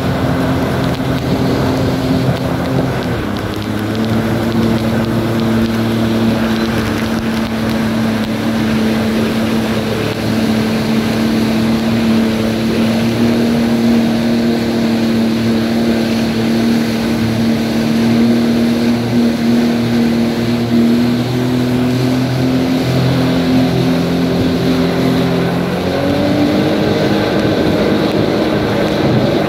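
Jet ski engine running at speed, holding a steady pitch that dips slightly a few seconds in and rises near the end. Rushing spray and wind on the microphone run underneath.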